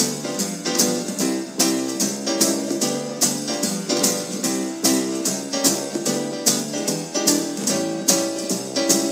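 Background music: sustained chords and melody over a steady beat of crisp percussive hits.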